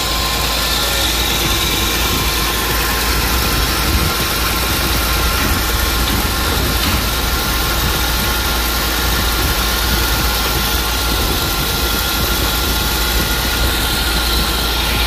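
Oldsmobile Cutlass Ciera's 3.0-litre V6 idling steadily, its new accessory drive belts turning the alternator, water pump and power steering pump. It runs smoothly with the belts properly fitted: the alternator is charging and the power steering is working.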